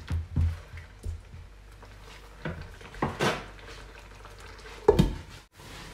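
Wooden spatula stirring and scraping through broth in an aluminium wok, with scattered light knocks of the spatula on the pan and one loud clack about five seconds in.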